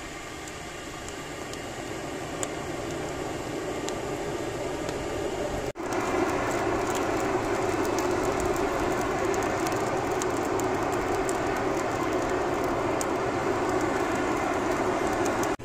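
Air-blown charcoal fire in a brick trough forge, heating a katana blade for hardening: a steady rushing roar full of crackles and popping sparks. It grows gradually, then jumps suddenly louder about six seconds in and stays steady.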